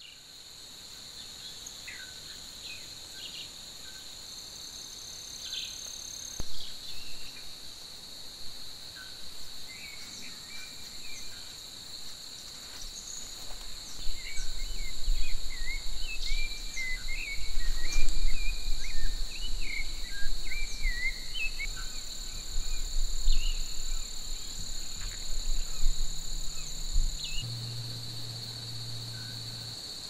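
Insects, crickets by their sound, trilling steadily at two high pitches, with many short bird chirps and calls from about ten seconds in and a low rumble through the middle.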